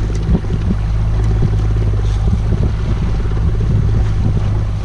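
Fishing boat's engine running steadily at trolling speed, a low even hum, with wind and water noise over it.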